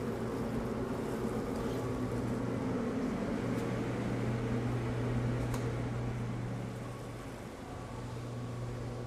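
Hydraulic kettle lift running with a steady low machine hum as it tips a batch of hot caramel out onto the table. The hum swells in the middle and eases off about seven seconds in.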